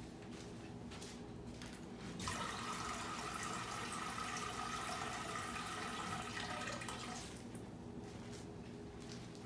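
Kitchen faucet running into a stainless steel pot, filling it with water: the flow starts about two seconds in, runs steadily for about five seconds, then is shut off.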